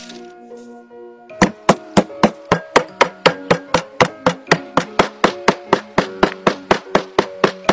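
A pestle pounding pearls in a stone mortar: sharp, evenly spaced knocks about four a second, starting about a second and a half in, over soft background music.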